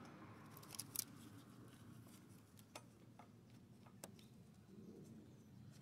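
Near silence broken by a few faint clicks and light taps, about five in the first four seconds, from hands fitting a new serpentine belt onto the engine's pulleys.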